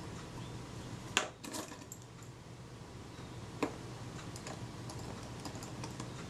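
Small, sharp metallic clicks and taps as a fine tool works on the small metal rangefinder parts of a Kodak Retina IIIc camera: one sharp click about a second in, a few lighter ticks just after, and another single click about halfway through, over a faint steady hum.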